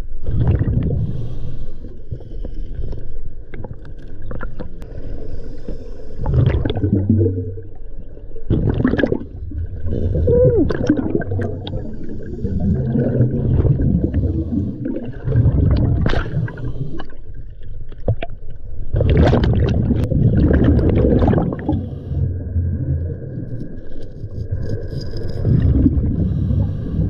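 Scuba diver's exhaled bubbles from the regulator, heard underwater as gurgling, rumbling surges every few seconds.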